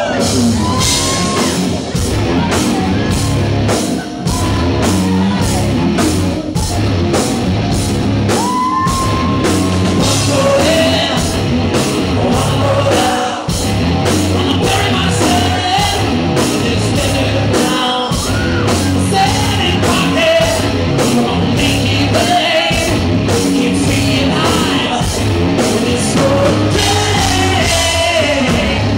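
A rock band playing live through a club PA: electric guitars, bass and a drum kit keeping a steady beat, with a male singer's voice over it.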